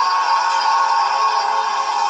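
Steady, harsh electronic alert tone, strongest around 1 kHz, held without a break: an emergency broadcast alert signal sounding after the spoken message.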